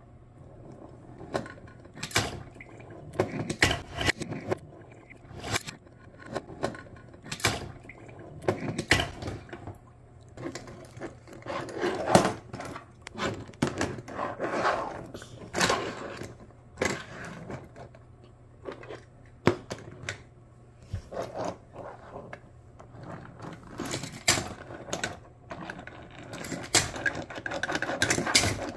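Die-cast metal toy cars being pushed across a tabletop and knocked together: irregular clicks, clacks and short scraping rolls of the wheels.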